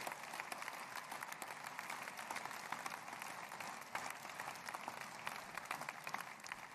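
A large audience applauding, many hands clapping at once at a steady level.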